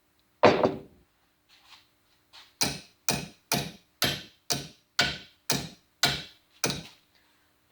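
Hammer striking a pair of rust-seized pliers to knock the rust loose from the joint: one blow, then a steady run of about nine sharp blows, roughly two a second.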